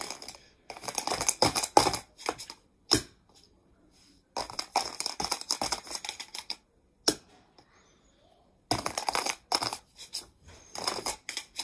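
Small plastic dice clicking and clattering against one another and the plastic stick as they are handled and stacked. The clicks come in several quick rattling bursts with short pauses between.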